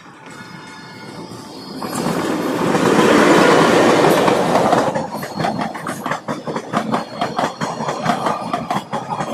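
Electric-hauled passenger express train passing close by on the track. Its approach swells into a loud rush about two to five seconds in, then the coaches roll past with a rapid clickety-clack of wheels over the rail joints.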